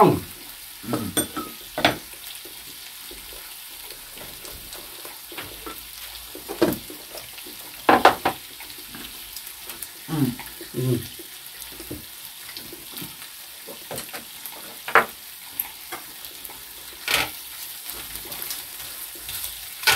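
Pork belly sizzling steadily on a grill plate over a portable gas burner, with occasional sharp clinks and knocks of utensils against the grill and dishes.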